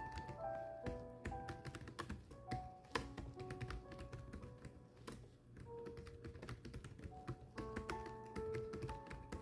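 Rapid, irregular keystrokes of someone typing, several clicks a second, over soft background music with held melodic notes.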